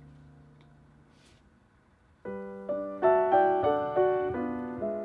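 Background music: a held chord fades out, then about two seconds in a piano begins playing a slow series of chords and single notes.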